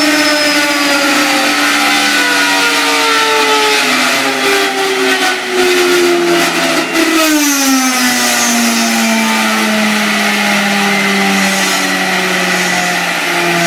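Small 1950s Budworth gas-turbine (jet) engine running with a loud, steady whine whose pitch slowly falls. Brief crackles come about five to seven seconds in, and the pitch then drops more sharply and settles lower.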